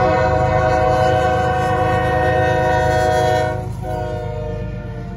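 Diesel locomotive's multi-chime air horn sounding one long blast over the low rumble of the train. The horn drops in loudness about three and a half seconds in and carries on more quietly.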